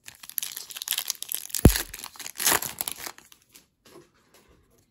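A hockey-card pack's foil wrapper being torn open and crinkled by hand, with a single thump about one and a half seconds in. The crinkling stops after about three and a half seconds, leaving a few faint clicks of the cards being handled.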